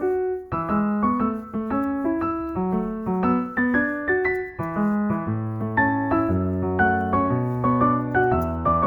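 Background music: a gentle piano tune with notes plucked in a steady rhythm, and low held bass notes coming in about five seconds in.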